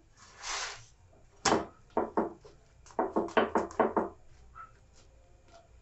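Nylon spatula on a non-stick tawa, pressing down a paratha as it cooks: a brief scrape, then short ringing knocks of the spatula against the pan. There is one loud knock about a second and a half in and a quick run of about six knocks near the middle.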